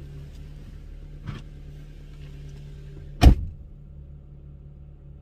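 A car door being shut hard about three seconds in, after a lighter knock of the door about a second in, over the steady low hum of the car's running engine.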